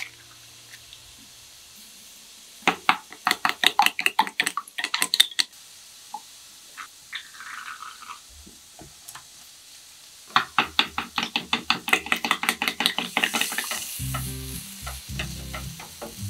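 Chopsticks beating eggs against a stainless steel bowl, a quick run of clicks about six a second, twice with a pause between. Near the end, julienned carrots sizzle in a wok as chopsticks stir them.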